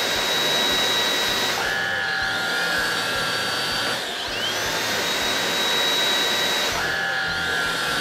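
Two vacuum cleaner motors running in turn: a Grobtech V-Scan 300 cordless vacuum and an older household vacuum. One motor spins up with a rising whine that levels off high, once at the start and again about halfway through. About a second and a half in, and again near the end, the sound changes to the other motor's steadier, lower-pitched tone.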